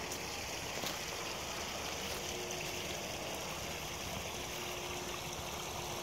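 Steady rush of running water from a stream.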